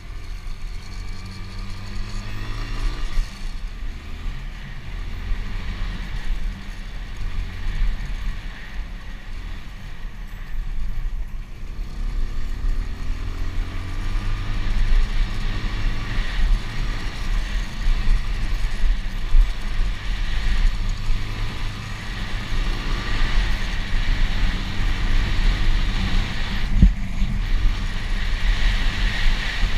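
Motocross dirt bike engine ridden hard on a trail, its revs climbing and dropping again and again with the throttle and gear changes, heard from a helmet-mounted camera with a heavy low rumble of wind and road noise.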